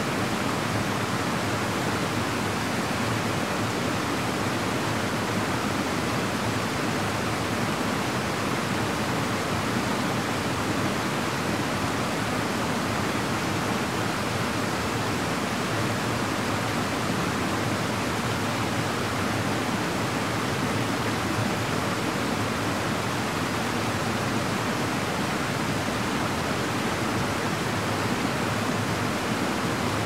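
Steady, even rush of water from a small mountain stream and waterfall.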